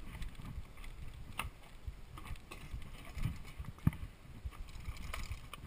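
Mountain bike clattering over roots and rocks: irregular low thumps from the tyres and suspension hitting the ground, with sharp rattling clicks from the chain and frame, and one harder knock about four seconds in.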